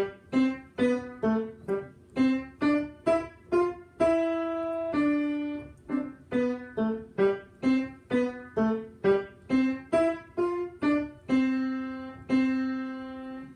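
Piano playing a simple melody with both hands: short detached notes at about two a second, in a staccato touch, broken by a few longer held notes that fade away, the last two held notes closing the phrase.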